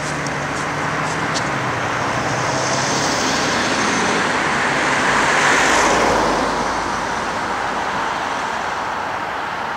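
Cars passing on a road, a steady rush of tyre and engine noise. One car passes close about five and a half seconds in, the loudest moment, then fades away.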